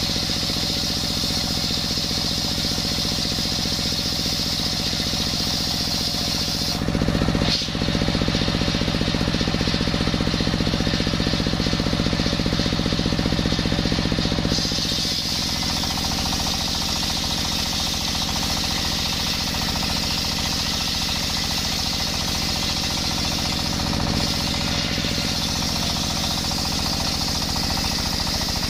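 Table-mounted circular saw blade ripping a coconut-wood beam lengthwise, a high screaming whine of the blade in the wood over the steady rattle of the stationary diesel engine that drives it by belt. The cut is heaviest from about seven to fifteen seconds in, then eases.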